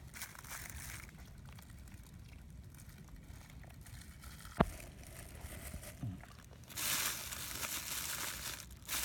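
Thin plastic food bags crinkling as food is unwrapped and handled, loudest for about two seconds near the end, with a single sharp click about halfway through.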